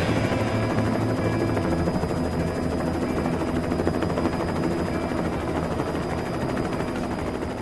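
Helicopter rotor sound, a steady rapid chop over a low rumble, slowly fading toward the end.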